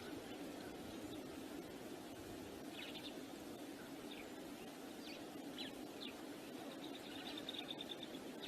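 Wind rushing on the microphone as a steady noise, with small birds giving short high chirps every second or so and a quick rattling run of chirps near the end.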